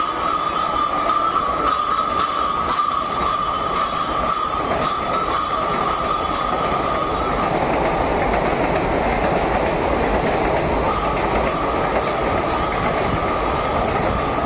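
ICF coaches of a non-stop express passing at speed: a steady rumble and clatter of wheels on the track, with a high wheel squeal that drops out about halfway through and comes back a few seconds later.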